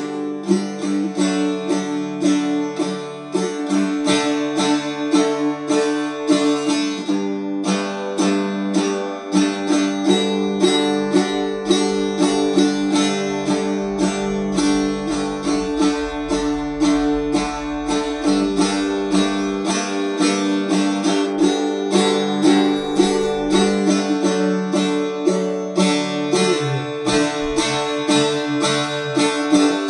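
Guitar strummed in a steady rhythm, chord after chord ringing on.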